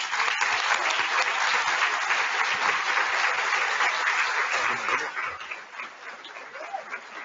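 Audience applauding in a conference hall. The applause is dense and steady, then dies down about five seconds in to fainter, scattered claps.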